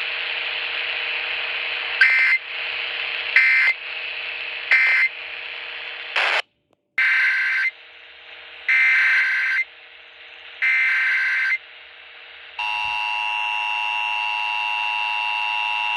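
Emergency Alert System tones off a radio broadcast. After about two seconds of radio hiss come three short digital data bursts about a second and a half apart, the end-of-message code closing one test. Then come three longer SAME header bursts about two seconds apart and, in the last few seconds, the steady two-tone EAS attention signal.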